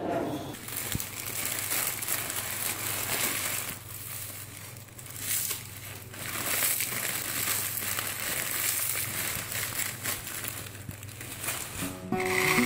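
Dry vermicelli poured from its plastic packet onto a ceramic plate and crushed between the fingers into short strands, with the packet rustling.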